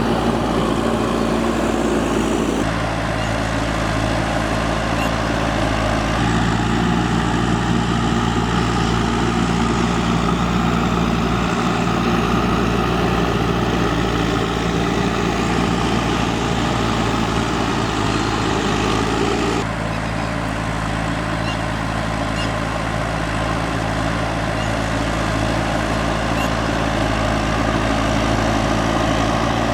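JCB 3DX backhoe loader's diesel engine running steadily while working. Its tone changes abruptly three times: about three seconds in, about six seconds in, and about twenty seconds in.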